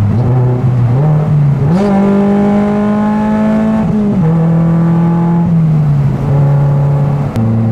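Lotus Elise engine heard from inside the cabin under load. The revs climb over the first two seconds and hold high, then fall back in steps about four seconds in, again a little later, and once more near the end.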